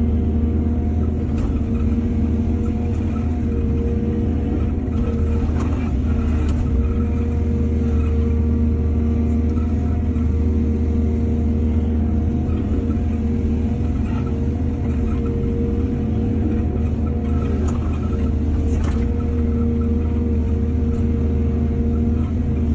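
Excavator's diesel engine running steadily with a deep hum, with a few short knocks about five to seven seconds in and again near nineteen seconds.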